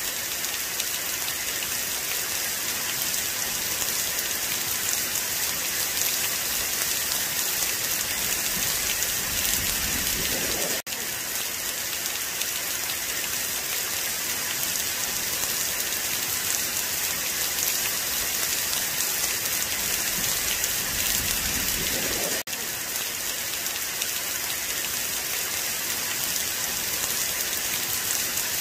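Steady rain pouring onto a grass field, an even hiss of many drops. It cuts out for a split second twice.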